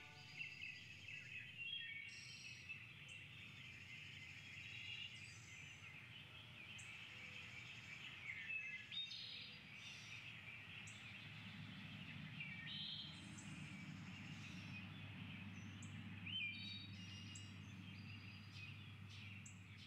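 Faint outdoor birdsong: many short chirps and calls from small birds, scattered throughout, over a low steady background rumble that grows slightly louder about halfway through.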